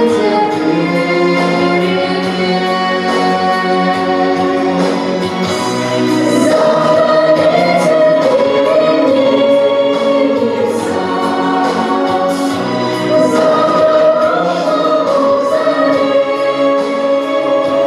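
A song sung by a group of voices together over an accompaniment with a steady beat.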